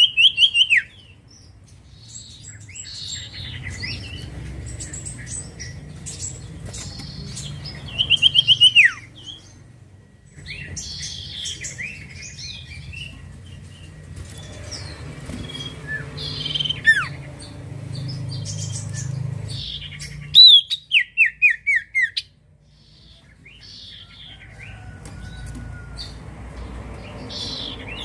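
Common iora (cipoh) singing: loud runs of quick, down-slurred whistled notes repeated every several seconds, with softer chirps and twitters in between.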